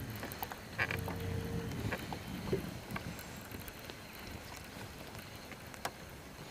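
A fishing reel being cranked slowly on a boat, with scattered small clicks and knocks. A low hum comes and goes in the first two seconds.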